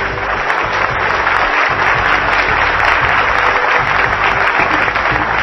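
Audience applauding with steady, dense clapping at the end of a lecture.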